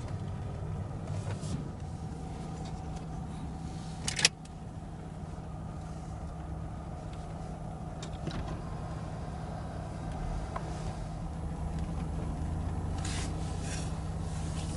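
Steady low hum of an idling vehicle engine, with a sharp click about four seconds in.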